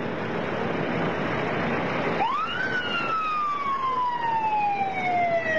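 A vehicle siren winds up quickly about two seconds in, then falls slowly in one long wail, over steady vehicle engine noise as the crew bus pulls away.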